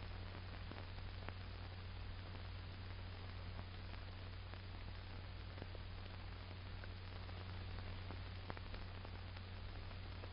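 Steady low hum with even hiss and a few faint scattered clicks: the background noise of an old film soundtrack, with nothing else to be heard.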